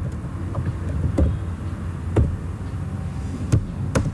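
Computer keyboard keys pressed one at a time, about five sharp clicks at slow, uneven intervals, over a steady low background rumble.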